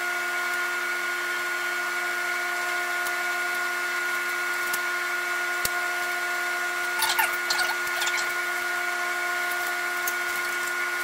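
A steady machine-like hum holding several fixed pitches, with a few short high scraping squeaks about seven seconds in.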